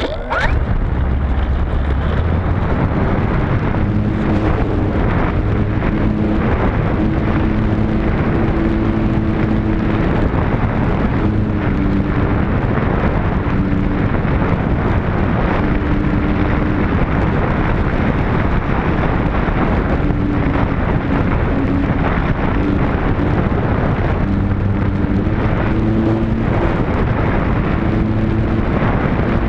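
Heavy wind buffeting the microphone of a camera riding on a radio-controlled model Spitfire in flight, with the model's motor and propeller hum shifting up and down in pitch throughout.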